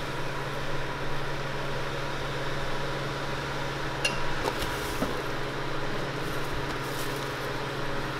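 Steady low hum of running kitchen equipment, with a few light clicks and clinks about four, five and seven seconds in.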